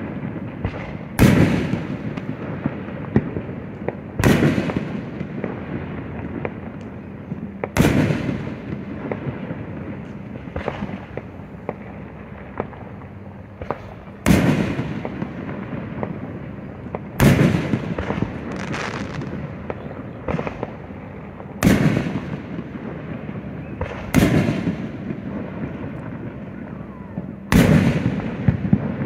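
Aerial firework shells bursting at a distance, about nine loud booms every few seconds, each followed by a fading echo, with a steady crackle between bursts.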